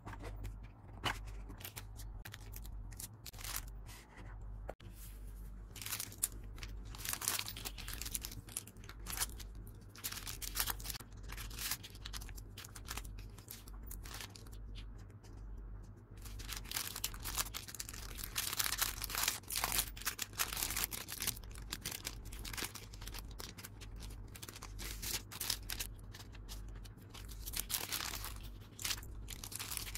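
Paper and a clear plastic sleeve being handled at a desk: crinkling, rustling and tearing in irregular bursts. A steady low hum runs underneath.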